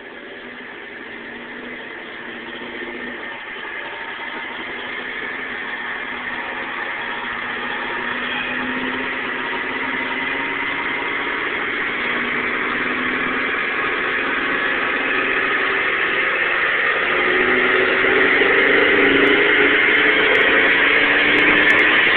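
Stock 1989 Ford Mustang GT's 5.0-litre V8 pulling under load on a chassis dynamometer, its revs and loudness climbing slowly and steadily.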